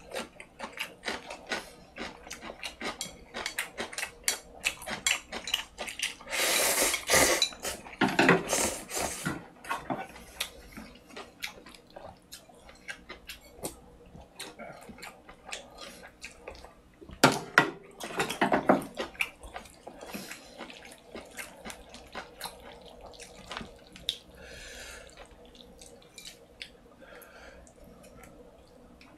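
A man eating spicy ramyeon noodles in seaweed soup: wet chewing and frequent small clicks of chopsticks on a bowl, with two long loud slurps about seven and about seventeen seconds in.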